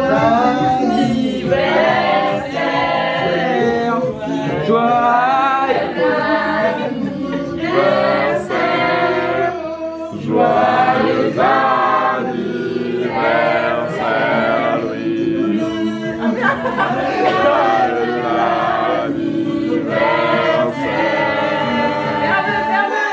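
Voices singing together like a choir, with little or no instrumental backing, in phrases a second or two long.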